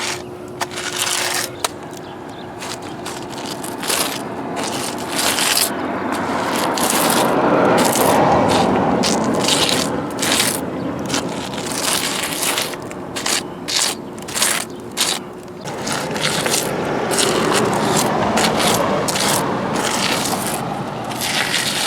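A tool scraping and working wet concrete in many short, repeated scrapes.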